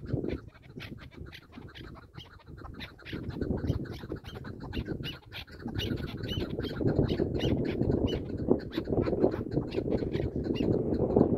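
Chukar partridges calling: a fast run of short, clipped chuk notes, about four a second, over a low rumbling noise that grows louder about halfway through.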